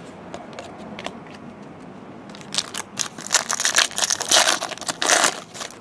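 Foil wrapper of a 2012 Bowman Chrome trading-card pack crinkling and crackling as it is handled and torn open. The crinkling starts about two and a half seconds in and runs for about three seconds.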